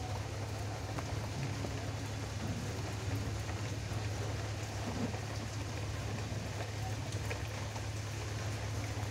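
Plastic fidget spinners with steel ball weights whirring as they spin flat on a glass counter, a steady crackly hiss with faint ticks over a constant low hum.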